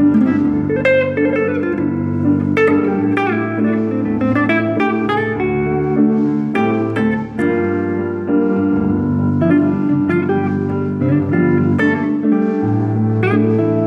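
Archtop guitar playing a plucked melody line of single notes and short runs over held chords from a Roland RD-300NX digital stage piano.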